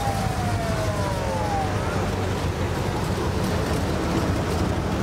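A siren winding down, its pitch falling slowly until it fades out about two seconds in, over the steady low rumble of hearse engines driving past.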